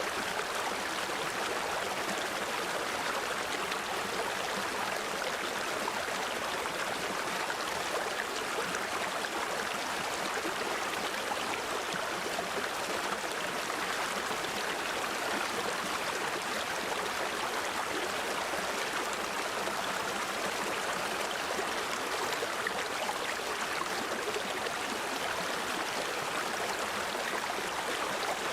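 Mountain stream flowing over rocks, a steady rush of water with gurgling.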